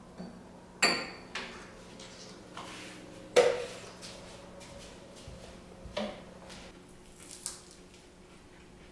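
Dishes and cutlery clinking as tableware is handled on a table: about five separate knocks with brief ringing, the loudest about three and a half seconds in.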